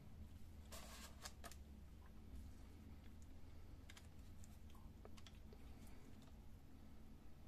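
Faint, scattered light clicks and taps of a laser-printer fuser assembly being handled while its new fixing film is fitted, over a low steady hum of room tone.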